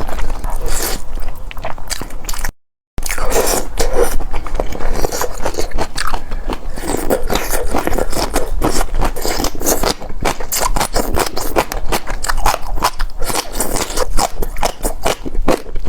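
Close-miked chewing and crunching of food, full of small crisp clicks and wet mouth sounds. The sound cuts out completely for about half a second near the start.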